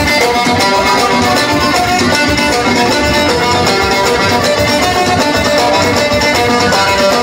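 Live band music: an oud plucking a melody with a violin over a steady beat.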